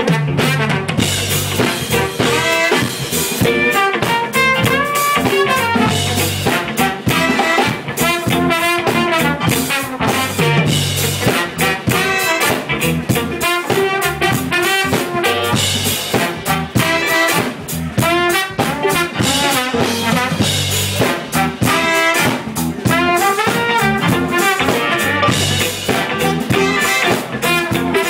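Live funk band playing: a trombone carries a wavering melodic line over electric bass, electric guitar and a steady drum-kit groove.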